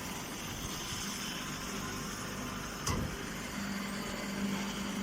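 Grass baler machine running with a steady mechanical noise, a single knock a little under three seconds in, and a steady low hum setting in about halfway through.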